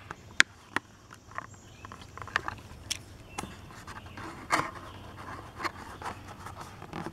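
Clear plastic blister pack of a Hot Wheels card crinkling and clicking as a small die-cast car is pulled out of it, with scattered sharp clicks, the loudest about half a second in.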